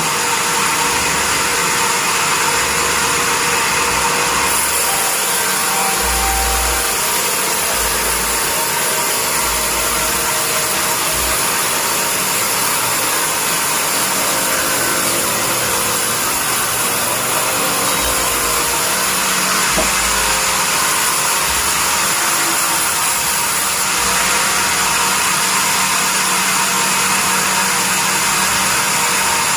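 Sawmill bandsaw machine running, a steady high-pitched mechanical noise that holds level throughout, with a slight change in its top edge about four seconds in and again near the end.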